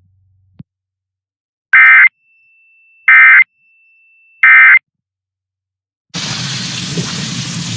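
Emergency Alert System end-of-message data signal: after a small click, three short, very loud bursts of buzzing digital data tones about a second and a half apart. Near the end, a steady hiss cuts in as the TV programme's audio returns.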